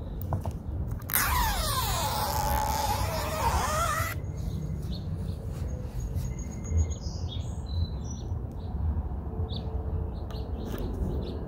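Red backing liner being peeled off the double-sided adhesive tape on a trunk spoiler's underside: a loud ripping peel lasting about three seconds, starting about a second in, followed by fainter scratches and ticks as the last pieces come away.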